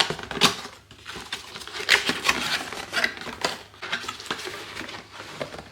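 Cardboard tyre box and its packaging being opened and emptied by hand: irregular rustling, scraping and a few knocks.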